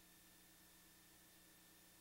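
Near silence: a faint steady hiss with a low electrical hum and a thin high whine.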